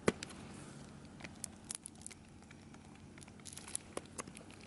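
Thick deep-fried tofu grilling on a wire rack over charcoal, with soy sauce dripped on its hot surface: faint, scattered crackles and small pops.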